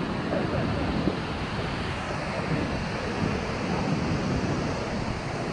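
Steady rushing of water, with wind gusting on the microphone.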